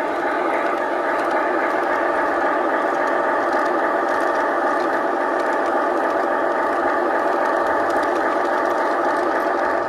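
G scale model locomotive running along garden track, heard up close: a steady mechanical whine with a rattle from its motor, gears and wheels.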